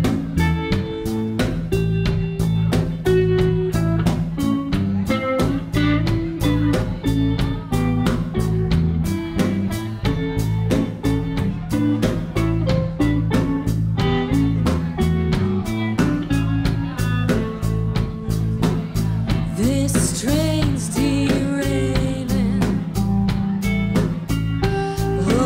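A live rock band playing: drum kit keeping a steady beat under electric bass and guitar, with a woman's singing voice coming in about three-quarters of the way through.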